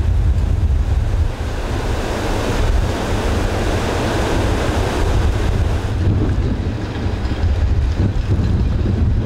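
Heavy storm surf crashing and churning, with strong wind buffeting the microphone in a deep, uneven rumble.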